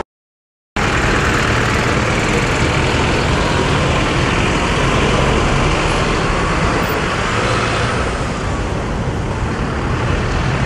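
Steady street noise from road traffic, a continuous roar of passing vehicles without clear tones. It begins after a short moment of complete silence.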